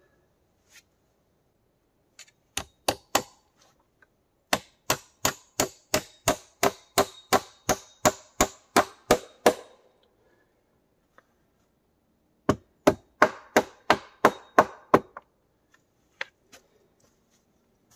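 Hammer striking wood: three blows, then a long run of quick, even strikes at about three or four a second, and after a pause a second run of about nine.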